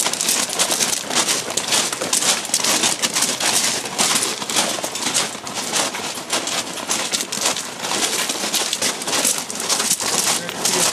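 Footsteps crunching on loose railway ballast gravel as several people walk quickly alongside parked freight cars, in a dense, irregular run of crunches.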